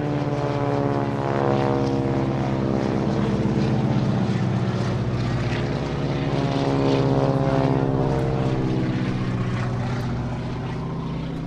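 Two Boeing Stearman biplanes' radial engines droning as they fly past, the engine note sliding in pitch as they pass. It swells loudest about a second and a half in and again about seven seconds in.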